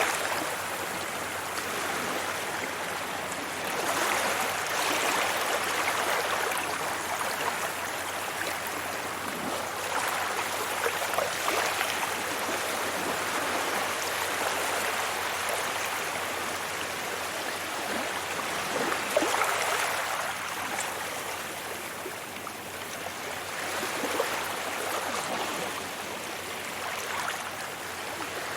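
Sea waves washing onto a beach: a continuous rush of surf that swells and eases every several seconds as each wave comes in.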